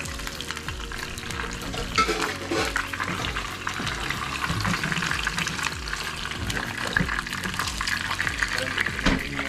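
Hot oil sizzling and crackling in a small frying pan as a whole squid fries. The sizzle goes on as a whole fish is laid into the pan beside it.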